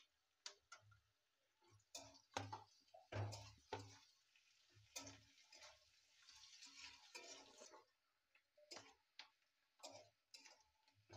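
Faint stir-frying: a metal spatula knocking and scraping against a metal kadai (wok) as onions and green beans are tossed in hot oil, with a light sizzle in the middle stretch.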